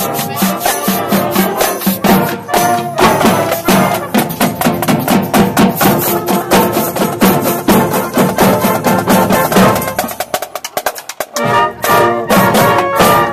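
Band music with brass over a fast, steady drum beat, which drops away briefly about ten seconds in before coming back.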